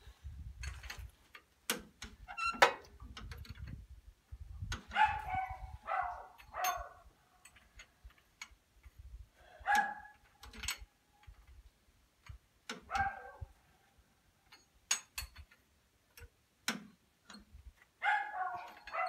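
Scattered sharp metal clicks and clinks of hand tools working on the brake linkage under a Store 404 tractor's rear axle. Several short animal calls are mixed in now and then.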